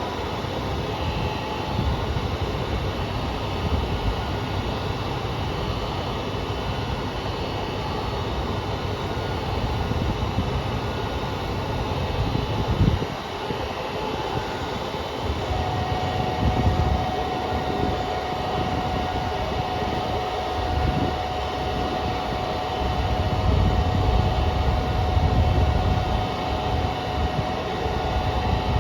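JR Kyushu KiHa 200 diesel railcar standing with its engine running, a steady low rumble, while the unit makes the abnormal noise that is present throughout, coming from car KiHa 200-1551. A steady high tone joins about halfway through and holds on.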